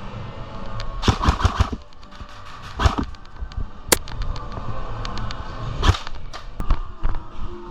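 Airsoft guns firing: a quick volley of about five shots a little after a second in, then single shots scattered through the rest.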